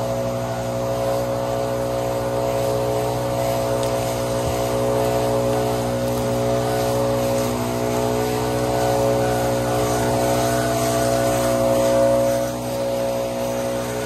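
Stihl backpack leaf blowers running steadily, blowing dry leaves off the forest floor to clear a fire line, with a brief dip in level near the end.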